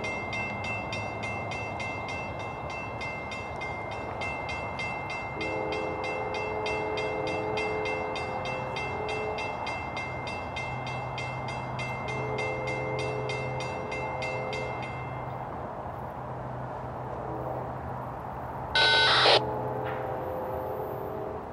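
A grade-crossing bell rings rapidly and stops about fifteen seconds in, while the approaching CSX C40-8W #7906 blows its first-generation Nathan K5LLA horn in the crossing signal: long, long, short, long. The locomotives' diesel rumble grows from about halfway through, and a brief sharp burst, the loudest sound, comes just before the last long blast.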